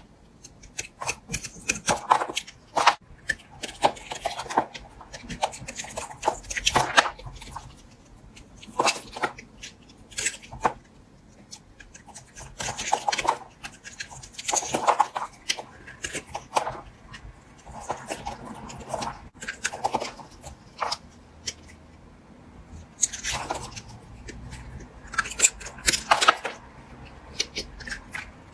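A knife cutting through bars of soap: irregular crisp cuts and short scrapes in clusters, with brief pauses between them.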